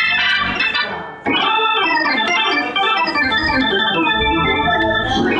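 Organ playing gospel chords, with a short break just after a second in, then full held chords with runs stepping downward.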